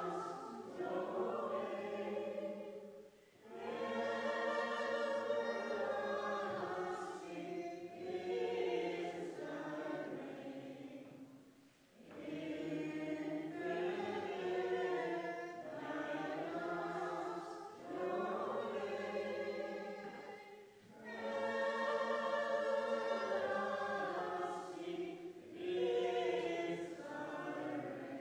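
A choir singing in long phrases, with brief pauses between them and a fade near the end.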